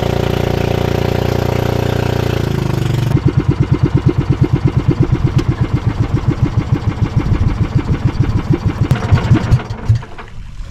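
A small engine running loud and steady, its pitch sagging briefly, then from about three seconds in chugging in a rapid, even beat until it drops away about a second before the end.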